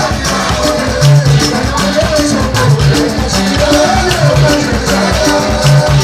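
Loud music with a steady beat, a bass line and shaken percussion, with a melody line over it.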